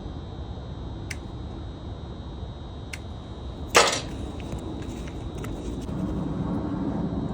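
Wire cutters snipping through an electrical wire: one sharp snap a little under four seconds in, with a few small clicks of the tool before and after, over a steady low background hum.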